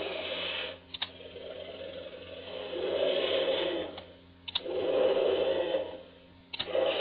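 Low-fidelity dinosaur roar sound effect, rough and hissing, played in repeated bursts. Each burst is separated by a short gap with a sharp click before the sound starts again.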